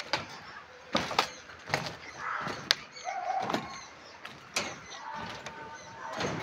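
A series of sharp knocks and clicks at irregular intervals, about six in all, with a short pitched call a little past the middle.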